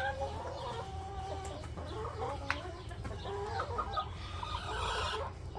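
Several backyard hens clucking and murmuring, short overlapping calls throughout, over a steady low hum.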